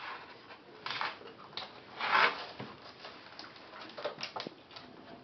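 Short rustling and rubbing noises as a whelping Chodsky pes mother dog moves her head over her newborn puppy, the loudest about two seconds in, with a few light clicks near the end.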